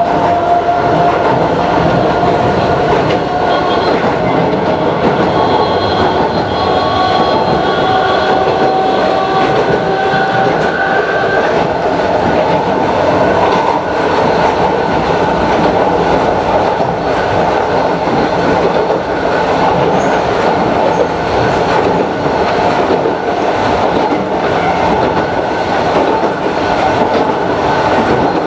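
Kintetsu Utsube Line narrow-gauge electric train running, heard from inside the cab: its nose-suspended traction motors and gears whine, the whine rising in pitch over the first ten seconds or so as the train gathers speed, over the steady rumble and clatter of the wheels on the rails.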